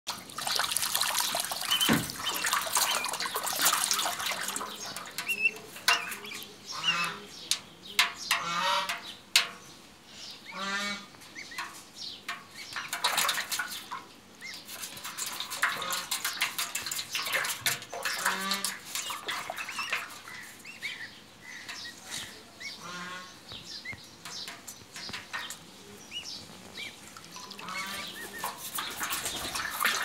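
Goslings calling with repeated trilling peeps while they paddle and splash in a shallow metal tub of water.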